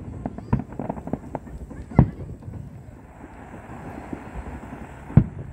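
Fireworks going off: a quick string of bangs and pops in the first second and a half, a loud bang at about two seconds, a steady hiss from about three seconds, and another loud bang near the end.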